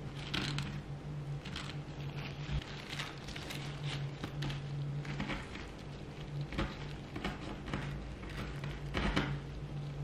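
Bread deep-frying in hot oil: an irregular sizzle and crackle, over a steady low hum.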